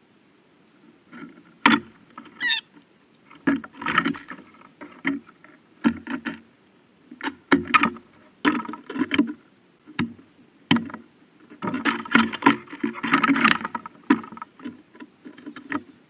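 Blue jay pecking and scrabbling at food on a platform feeder right next to the microphone: a run of irregular sharp knocks and short scuffles, thickest in a quick cluster near the end.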